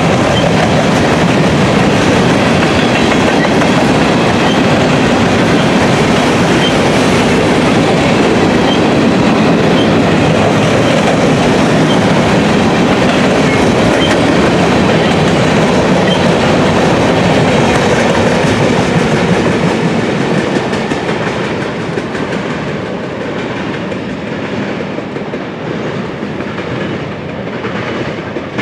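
A freight train of grain cars rolling past at close range, its steel wheels clattering over the rail joints. The sound holds steady for about twenty seconds, then fades as the train moves away, with one brief louder clank at the very end.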